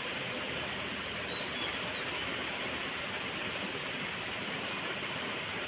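Steady rain falling on a wet concrete courtyard, an even hiss.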